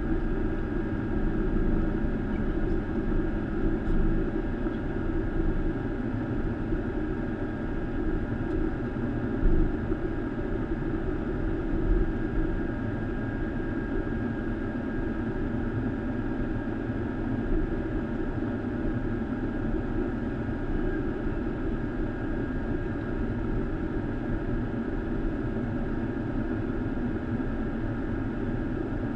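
Steady cockpit hum of a Boeing 737 taxiing with its jet engines at idle, a constant drone with a few fixed tones over low rumble. Two brief low thumps come about ten and twelve seconds in.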